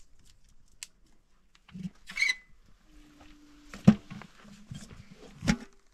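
A few knocks, clicks and a short scrape of a metal cooking pot and its lid being handled beside a fire, with two sharp knocks about four and five and a half seconds in the loudest.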